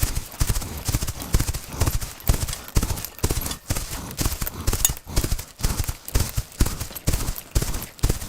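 Horse's hooves clip-clopping in a steady rhythm, about two to three hoof strikes a second.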